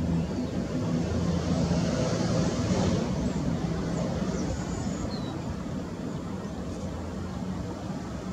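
Airbus A320neo's Pratt & Whitney geared turbofan engines running at low power as the airliner taxis, a steady low hum with a high hiss that eases off a little in the second half.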